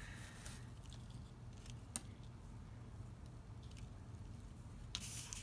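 Faint handling sounds of dry sisal fibre being pulled and arranged by hand: soft rustling with a few light clicks, the sharpest about two seconds in.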